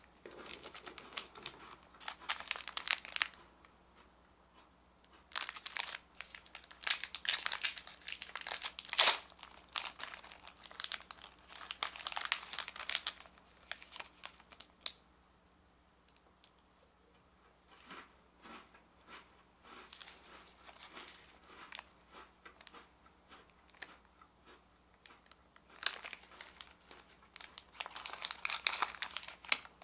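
Plastic wrappers of Glico Bisco biscuit packets crinkling and tearing as they are opened and handled. The noise comes in crackly bursts, with a quieter stretch of light rustling in the middle.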